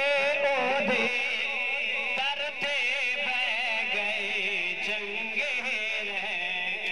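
A man's voice chanting a slow, ornamented religious recitation into a microphone, unaccompanied, with long wavering held notes.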